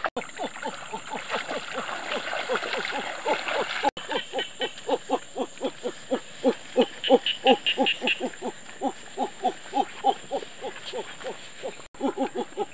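Animals calling outdoors: a steady run of short, low hooting calls, about three a second, with a brief faster, higher trill about seven seconds in.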